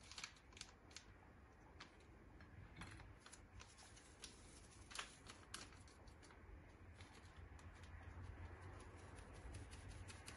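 Faint scratching and rustling of flour being rubbed by hand through a plastic-rimmed wire-mesh sieve into a glass bowl, with scattered light ticks that come in a faster run near the end as the sieve is shaken.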